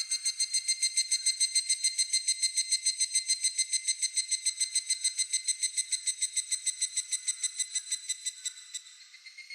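Higurashi (evening cicada) calling: a fast run of clear, ringing notes, about eight a second, fading toward the end as another higurashi's call takes over.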